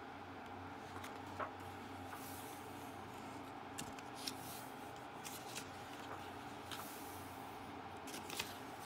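Paper magazine pages turned by hand: two soft paper swishes with small crinkles and taps, over a faint steady hum.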